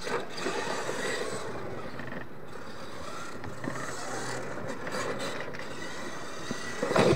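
Radio-controlled monster truck running across a loose dirt track, its motor driving and its tyres churning the dirt in a steady noise.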